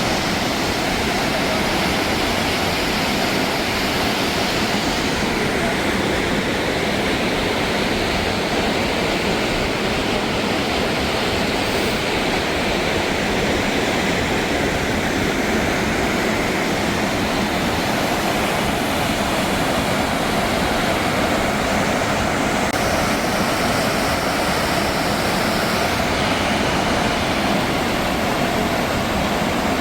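Steady, loud rush of water from a creek and a small waterfall.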